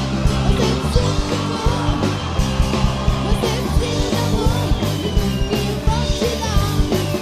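Loud music with a steady beat and strong bass.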